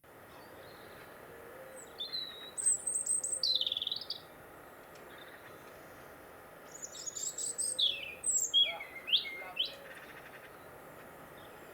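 A songbird singing in two short bursts of high chirps and quick sweeping notes, the first about two seconds in and the second about seven seconds in, over a faint steady outdoor background.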